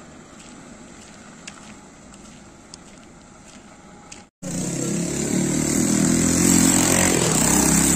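A quiet steady outdoor hum with a few faint ticks, then, after a sudden cut about four seconds in, a motor vehicle engine running loudly close by, growing louder toward the end.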